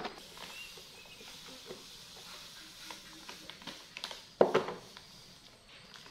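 Granulated sugar poured from a plastic bag into a glass jar of fruit: faint scattered ticks and rustling, with one sudden louder rush about four and a half seconds in.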